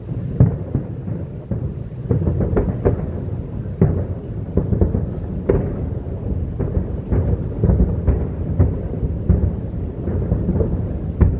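Aerial fireworks shells bursting at a distance: a continuous low rumble of overlapping booms with many sharper bangs scattered irregularly through it.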